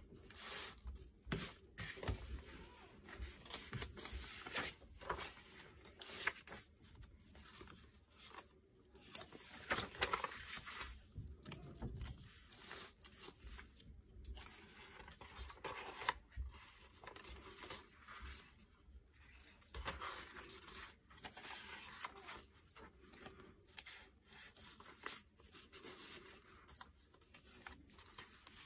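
Stiff coffee-dyed paper and card pages of a handmade junk journal being turned and handled, rustling and sliding in irregular strokes.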